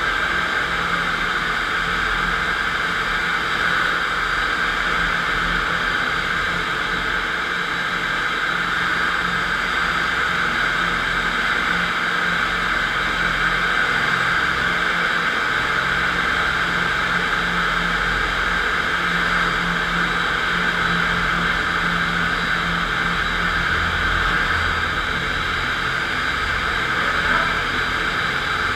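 FastPrep walk-behind concrete floor grinder running steadily, its diamond grinding plates cutting a concrete floor with a constant whirring hiss.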